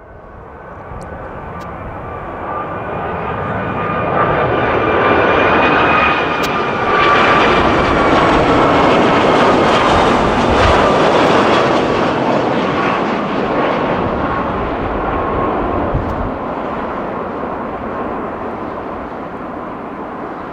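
Icelandair Boeing 757 jet airliner on landing approach, its engines growing louder as it comes near, passing with a steady whine that drifts slightly lower in pitch, then slowly fading toward touchdown.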